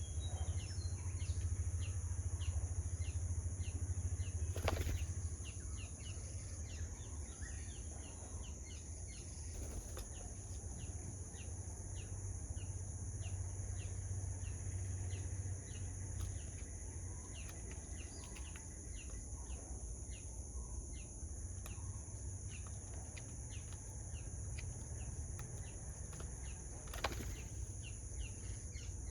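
Tropical garden ambience: a steady high-pitched insect drone with many short chirps above it, over a low rumble. Two sharp clicks, about five seconds in and near the end.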